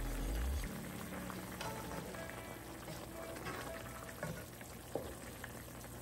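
Chicken stew simmering in a pan, its sauce bubbling and crackling, with a few light clicks of a wooden spatula as it stirs in the second half. A low rumble stops under a second in, and soft background music plays underneath.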